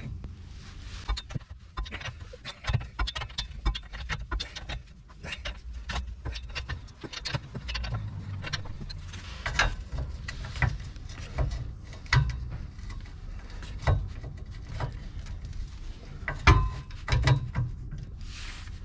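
Irregular clicks and metallic knocks of a long-handled socket wrench turning the rusty U-bolt nuts on a Citroën Relay van's rear leaf spring, the nuts coming off fairly easily. A low rumble sits underneath, and the loudest knock comes about three-quarters of the way through.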